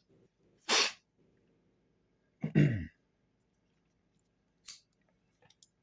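A man's sharp breath, then a short throat-clearing sound that falls in pitch, followed by a few faint clicks near the end.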